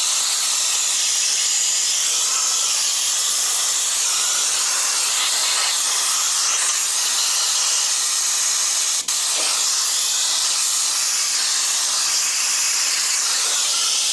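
Compressed-air blow gun hissing steadily as it blows debris out of a motorcycle cylinder block, at moderate pressure, with one very short break about nine seconds in.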